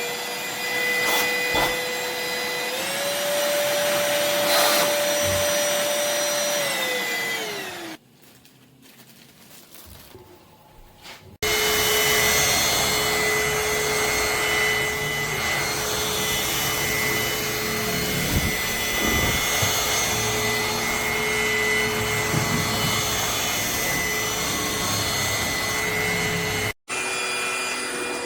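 MBYULO cordless stick vacuum's motor running with a steady high whine. It steps up in pitch about three seconds in, then winds down and stops. After a few seconds of quiet it starts again abruptly and runs steadily, cutting out for a split second near the end.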